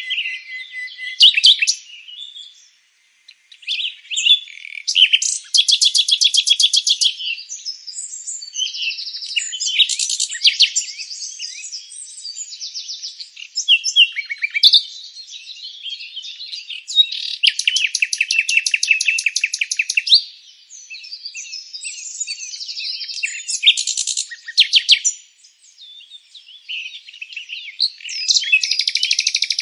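Songbirds singing: a busy run of varied chirps and warbles, broken by fast, loud trills lasting a second or more, three times.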